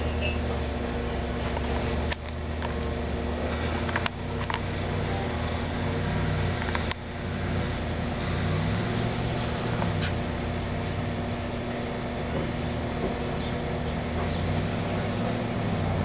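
A car engine revving up and down as the sedan's wheels spin and slip in deep snow, over a steady low hum. A few sharp clicks break in during the first half.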